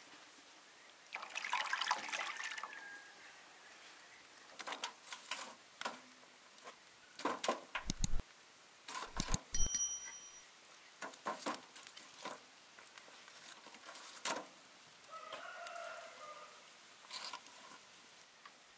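Chickens calling: a rooster-like crow with a falling pitch about a second in, and another fowl call later on. Between the calls come scattered sharp clicks and knocks, the loudest two in the middle.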